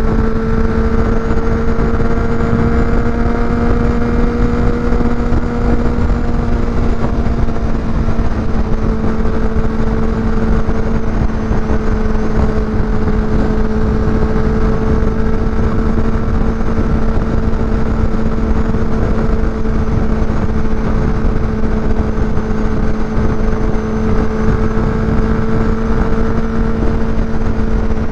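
Honda CBR600RR's inline-four engine cruising at a steady speed, its hum holding nearly one pitch throughout, under a heavy rush of wind noise.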